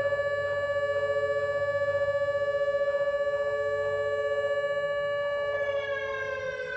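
Mini ASC Alertronic AL4000 electronic siren sounding its steady low-tone alert through its horns, a thin, tinny tone that clashes with a slightly lower background Whelen siren tone and wavers evenly in loudness. About five and a half seconds in, the pitch slides downward while a steady tone carries on underneath.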